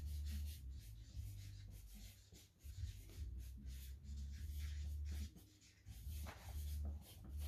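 A pen writing on a card in a series of short, faint scratching strokes, over a steady low hum.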